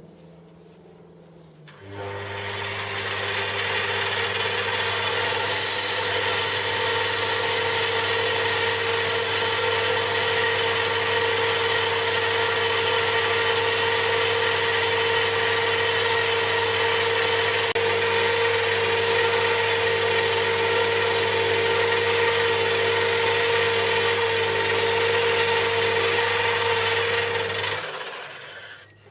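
Electric machine tool switched on about two seconds in, running steadily with a motor hum and a hissing cutting noise, then shut off near the end.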